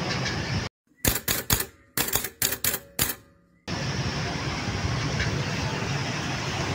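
Steady road traffic noise with motorcycles going by. About 0.7 s in it cuts out to silence for about three seconds, filled by a quick run of about ten sharp clicks, before the traffic noise comes back.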